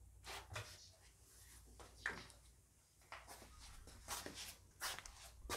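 Faint scattered clicks, taps and rustles of small objects being handled, about half a dozen short knocks spread over the few seconds.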